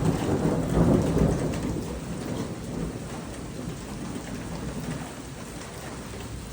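Heavy rain pouring down and pattering on metal gutters, with a low rumble of thunder that is loudest about a second in and then dies away.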